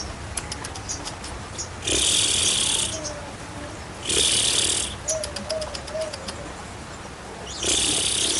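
A sogon bird in breeding condition giving harsh, hissing rasps three times, each under a second, between runs of rapid clicking chatter. A faint cooing runs underneath about halfway through.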